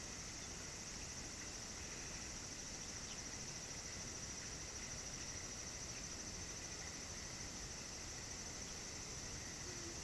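Insects droning steadily at a high pitch over a faint background hiss.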